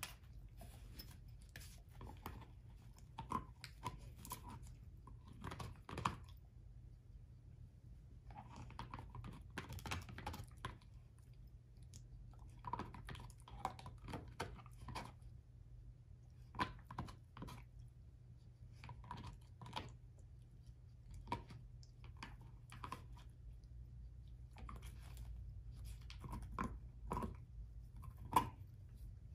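German shorthaired pointer chewing an air-dried, hair-on whole pig foot: crisp crunches and gnawing clicks in bouts, with short pauses between them.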